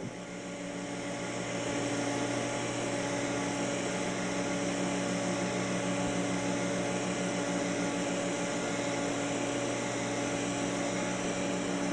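TIG welding of stainless steel tubing turning on a pipe positioner: a steady hum with a hiss from the arc, the welder and the positioner's drive motor, growing a little louder over the first two seconds.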